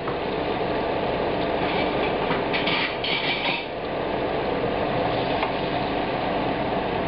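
Food processor motor running steadily, grinding celery, red bell pepper and onion fine. Under it, butter and flour bubble in the pot.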